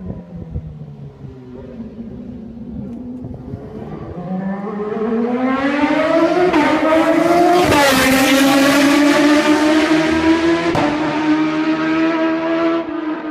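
A loud, high-revving vehicle engine accelerating as it approaches, its pitch climbing. It passes close about eight seconds in with a sudden drop in pitch, then keeps accelerating as it moves away.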